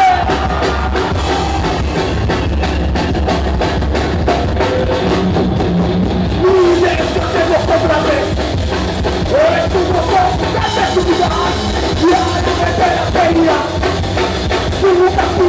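Live rock band playing loud, with electric guitars and a drum kit keeping a steady beat, and a vocalist singing and shouting into a microphone over it.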